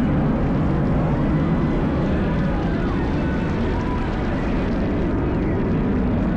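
Steady rumble of aircraft engine noise, even in level throughout, with no sudden sounds.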